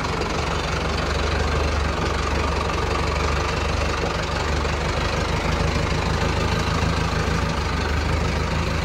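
A vehicle engine idling steadily with a deep, even rumble. It is an added engine sound effect, since the plastic toy truck has no motor.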